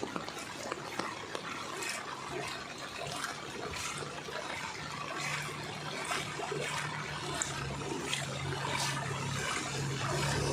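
Floodwater running in a strong current, splashing and trickling. A low steady hum comes in about two seconds in and grows louder.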